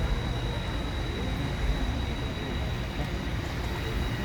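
Steady low rumble of a river tour boat's motor under way, with a thin, steady high whine above it.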